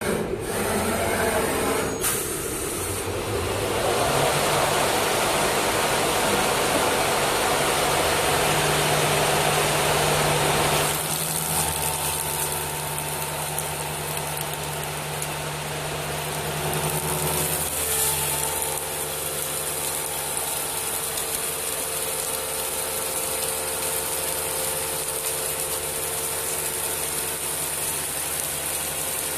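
CNC wood turning lathe running: a steady machine hum with several level tones. A louder, rough rushing noise lies over it for about the first eleven seconds, then stops.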